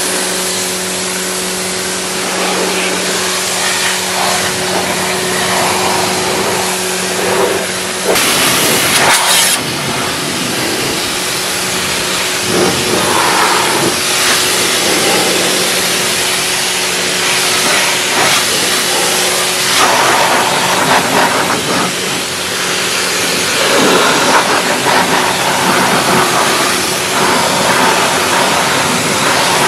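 Pressure washer running, its pump motor humming steadily under the hiss of the high-pressure water jet spraying mud off a car's wheel and tyre. About eight seconds in the hiss briefly gets louder.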